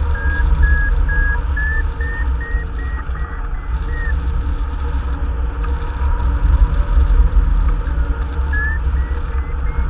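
Hang glider variometer beeping in quick short pulses that rise in pitch, the tone of a climb in a thermal; the beeps stop about four seconds in and start again near the end. Under them, a loud steady rumble of airflow buffeting the wing-mounted camera's microphone.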